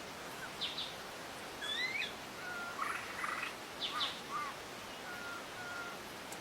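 Wild birds singing: a string of short chirps, quick up-and-down glides and brief whistled notes, over a steady background hiss.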